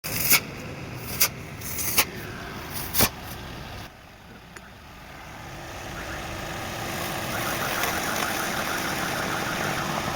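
Four sharp knocks in the first three seconds, then a car engine running steadily, growing louder over the second half.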